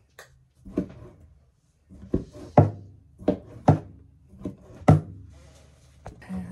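Knife slicing sausage on a cutting board: about seven sharp knocks at uneven intervals, the loudest about two and a half and five seconds in.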